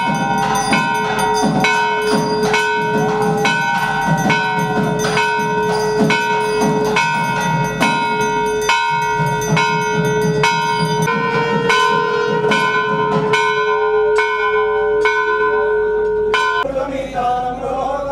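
Temple bell rung over and over, about two strikes a second, each ring carrying on into the next. The ringing stops near the end.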